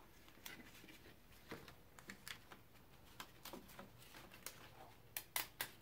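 Faint scattered clicks and ticks of a pointed tool and fingers prying a thin card border out of a picture frame, with three sharper clicks close together near the end.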